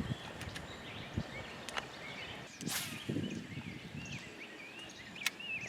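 Outdoor ambience with small birds chirping and warbling in short curling phrases, a brief swish about halfway through and a sharp click near the end.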